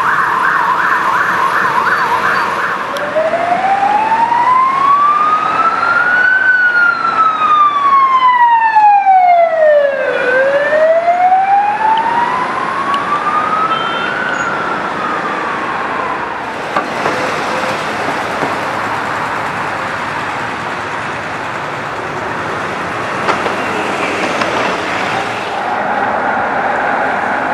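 Emergency vehicle sirens in city traffic: a rapid yelp for the first couple of seconds, then a slow wail that rises and falls twice before stopping, followed by passing traffic. A steady tone comes in near the end.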